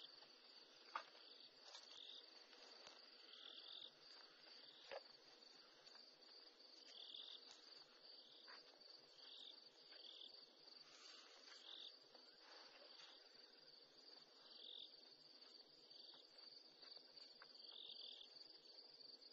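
Faint night insects: a steady high trill, with a shorter chirp repeating about once a second. Two sharp clicks stand out, about a second in and again about five seconds in.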